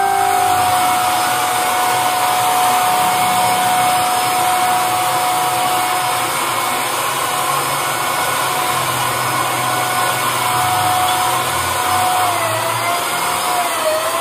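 Handheld electric spray paint gun running continuously as it sprays paint, a steady loud motor whine and rush of air. The whine's pitch wavers slightly near the end.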